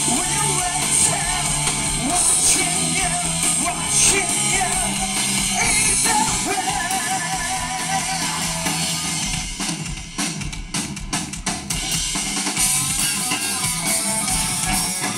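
Live rock band playing: drum kit, electric bass and electric guitar with a singer, heard from within the audience. About ten seconds in the sound thins to a few separate sharp hits for a couple of seconds, then the full band comes back in.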